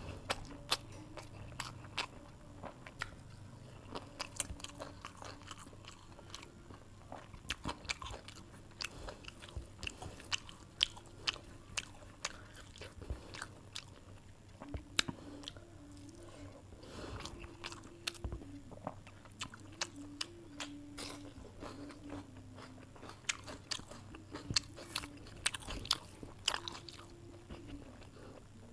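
A person eating chicken curry and rice close to the microphone: chewing and biting with frequent sharp crunching clicks.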